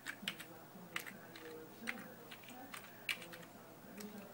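Computer keyboard being typed on: about eight separate keystrokes, short clicks at an uneven pace.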